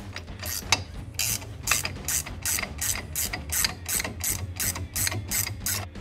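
Hand ratchet wrench clicking in quick back-and-forth strokes, about two or three a second, as a bolt is run in on a rear axle housing end; the clicking stops near the end, over a low steady hum.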